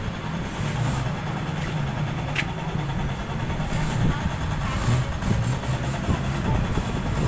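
Motor vehicle engine idling with a steady low rumble.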